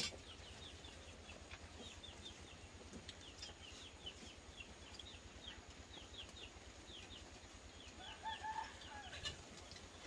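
Chickens calling faintly: a steady run of short, high, falling peeps, with a brief lower call about eight seconds in.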